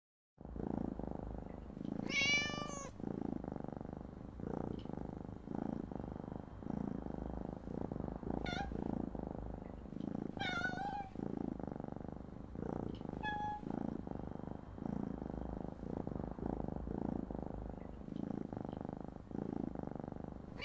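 A domestic cat purring steadily, the purr swelling and fading about once a second, with four meows over it: a long one about two seconds in, two around the middle and a short one a little later.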